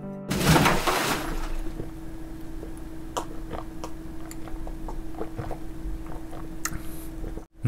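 A person drinking lager from a glass. A short rush of noise comes first, then soft gulps and swallows over a steady low hum. The sound cuts off suddenly just before the end.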